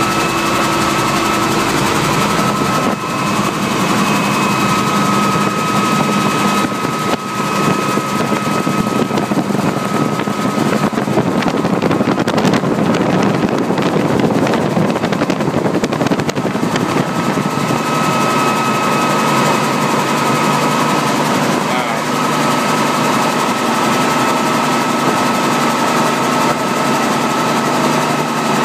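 A spinning fairground ride in motion: a loud, steady rushing noise with a high, steady whine running through it.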